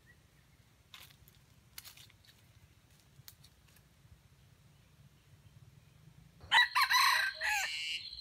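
A red junglefowl rooster crows once near the end: a short, loud, clipped crow that ends on a steady high note. Before it there are only a few faint ticks.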